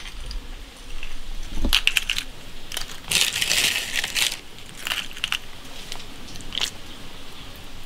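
Crushed ice crunching and clinking as it is pressed and arranged by hand on a plate lined with lettuce leaves, in several short bursts, the longest about three seconds in.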